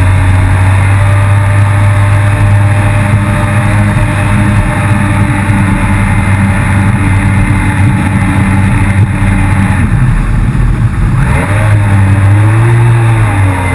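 Yamaha FX160 HO jet ski engine running hard at a steady pitch. About ten seconds in, the revs drop, then rise and fall again near the end.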